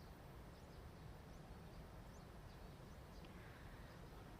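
Near silence: faint steady background hiss with a few scattered faint high chirps.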